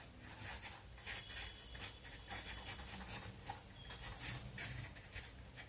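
Pen writing on paper: faint, irregular scratching strokes as words are written out.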